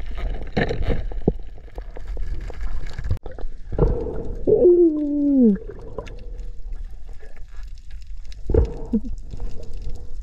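Underwater sound picked up by a freediver's camera: a low rumbling wash with a few knocks and a faint steady hum. About halfway through comes one loud moan that falls in pitch over about a second, and a short, fainter one follows near the end.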